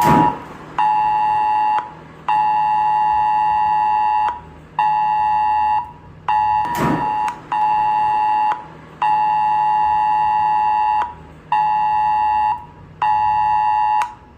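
Mobile phone emergency alert tone: a loud two-pitch attention signal sounding in pulses of about one and two seconds with short gaps, the alarm of a government cell-broadcast test alert. A single knock about seven seconds in.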